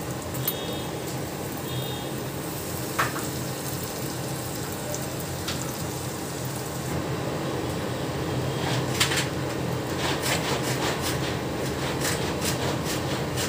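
Papdi dough sizzling as it fries in hot oil in a pan, a steady hiss with a low hum beneath. In the second half, steel tongs click and scrape against the pan as the papdi is turned.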